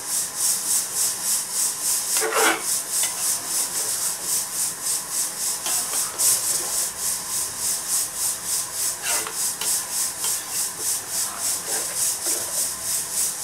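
A steel ladle stirring and scraping vegetables against a steel kadai, with a few sharper scrapes. Behind it an insect calls 'sui sui sui' in a high, fast, even pulse.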